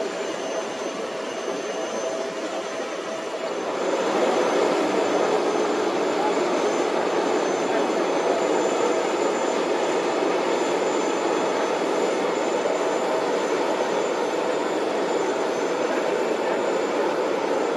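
Jet noise from a Boeing 777-9's two GE9X turbofans as it flies its display: a steady roar that grows louder about four seconds in and then holds.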